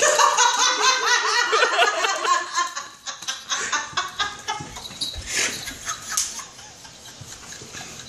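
People laughing hard, in quick repeated bursts, fading out about three seconds in. A few faint clicks follow.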